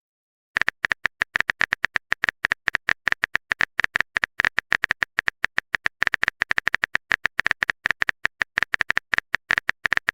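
Keyboard typing sound effect: a rapid, uneven run of sharp clicks, several a second, starting about half a second in.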